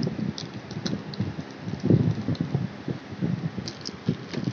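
Hands working open a taped cardboard parcel box: irregular scraping and knocks on the cardboard with rustling of the plastic tape, and a few sharp clicks.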